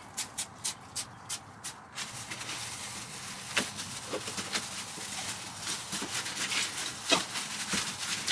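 Work sounds from gluing minicell foam strips to a van's metal floor. For about two seconds there is a run of even clicks, about three a second, then a steady hiss with scattered rustles and taps as gloved hands press the foam down.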